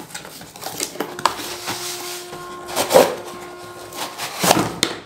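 Cardboard box being opened and a tripod in its fabric bag slid out of it: irregular rustling and scraping of cardboard, with louder scrapes about three seconds in and again near the end.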